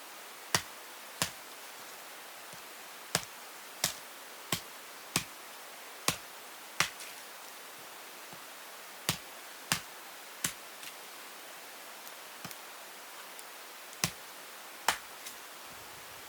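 A run of sharp, irregular clicks or knocks, roughly one a second, over a steady hiss.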